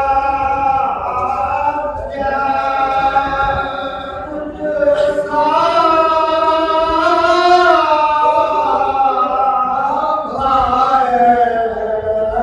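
A male reciter and his chorus of men chanting an Ashura mourning recitation together without instruments, in long drawn-out notes with short breaks between phrases.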